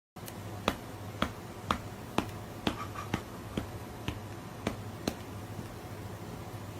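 A run of about ten sharp snaps or clicks, roughly two a second, over a steady low hum.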